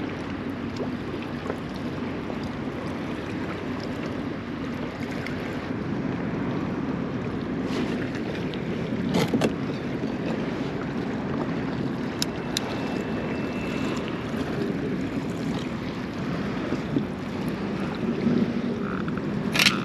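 Water lapping against a plastic fishing kayak's hull, with wind on the microphone and a few light knocks, the loudest near the end.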